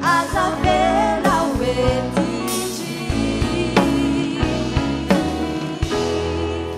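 A live band with drum kit and guitar plays the closing bars of a song. A sung vocal line runs for the first couple of seconds, the band then plays on with drum hits, and the music fades away near the end.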